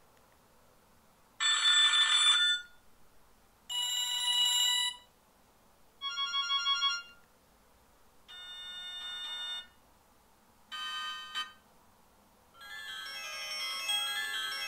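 Panasonic KX-TF200RU push-button mobile phone's speaker playing its built-in ringtones as short previews one after another: five different electronic melodies of about a second each, each stopping abruptly, then a sixth, fuller melody that starts near the end and keeps playing.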